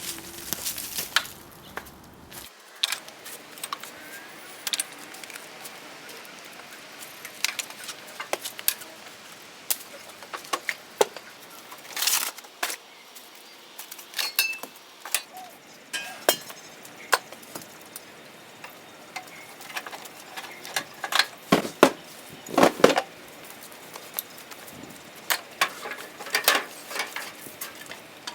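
A series of irregular knocks, clicks and clinks, as of hard objects being handled, with the loudest cluster about three quarters of the way through. No motor is running.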